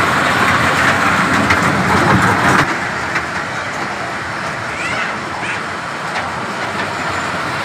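Steady mechanical rushing noise, like a motor or blower running. It is louder for the first two and a half seconds, then drops a little.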